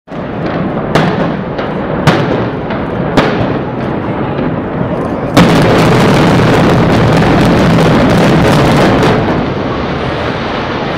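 Building implosion by explosive demolition charges: a few separate sharp bangs in the first three seconds, then from about five seconds in a much louder dense string of rapid blasts lasting about four seconds, easing into a lower steady rumble as the building comes down.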